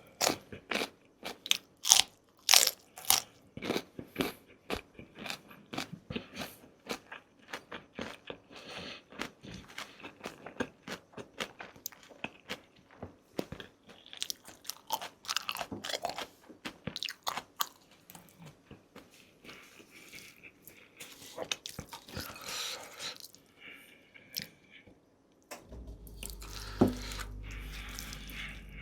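Close-miked eating: a rapid run of sharp crunchy bites and chewing, thinning out to softer chewing after about two-thirds of the way through. Near the end a low steady hum comes in.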